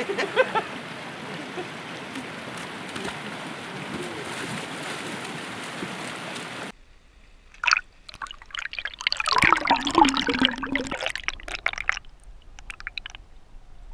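Steady babble of a shallow mountain stream. About seven seconds in the sound switches abruptly to the muffled splashing, gurgling and knocking heard from a camera held under the water of the stream.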